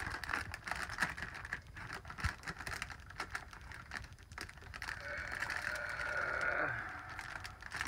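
Clear plastic wrapping around a stack of comic books crinkling and crackling as it is pulled and picked open by hand, with a longer rasping tear about five seconds in.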